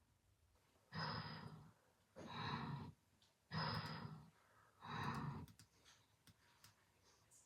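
A person snoring: two slow in-and-out breaths, each breath a noisy rush with a low rasp underneath.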